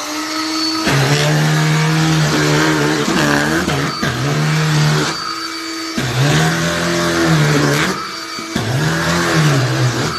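BLACK+DECKER Dustbuster cordless handheld vacuum running, its motor hum dipping in pitch and climbing back again and again, with a couple of brief breaks.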